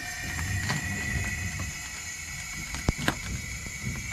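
Pneumatic air-bag (bellows) jack inflating under a car's rear suspension arm: compressed air hissing through its valve with a steady whistle as it lifts the arm to compress the coil spring. A few light clicks, and one sharp click a little before three seconds in.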